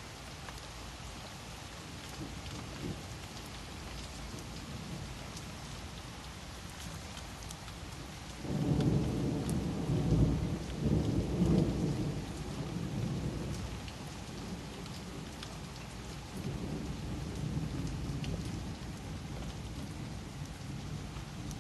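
Steady rain falling during a thunderstorm. A little under halfway through, a roll of thunder rumbles in suddenly and lasts about five seconds, and a fainter rumble follows later.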